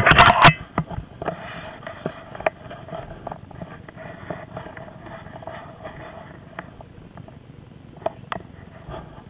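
Handling noise of a handheld camera being carried: a loud rubbing rustle in the first half second, then scattered light knocks and rustles.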